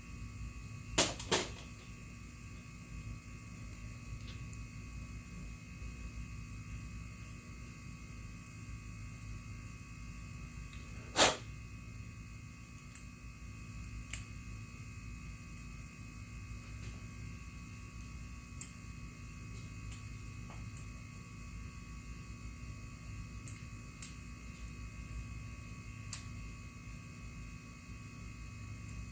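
Occasional sharp clicks and knocks over a steady hum: two close together about a second in, the loudest about eleven seconds in, and a few fainter ticks later.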